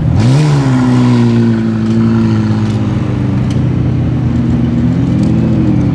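McLaren Senna GTR's twin-turbocharged 4.0-litre V8 rising from idle in a quick rev as the car pulls away, then running at low, steady revs as it drives slowly off, with a slight rise in pitch about five seconds in.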